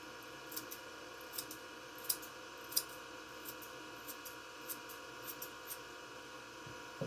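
Thinning scissors snipping a Silky Terrier's long tail hair: a string of short, crisp snips at irregular intervals, roughly two a second, the sharpest a little after two seconds in and again near three seconds in.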